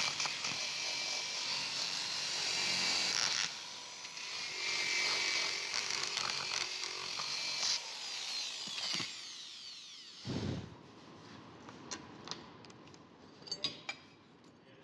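A power tool's wire wheel scrubbing rust off a drop-forged steel adjustable wrench, a loud hiss over the motor's steady whine. It lets off briefly about three and a half seconds in, runs again, then stops near eight seconds and spins down with a falling whine. A dull thump follows about two seconds later, then a few light clicks.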